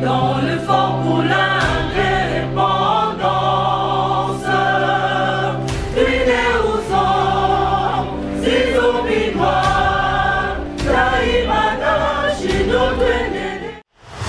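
Choral music used as a programme's opening theme, with several voices singing a melody over a held low note. It stops abruptly near the end.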